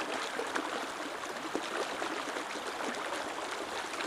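River water rushing and splashing over a low weir of stones and logs into a shallow riffle, a steady babbling.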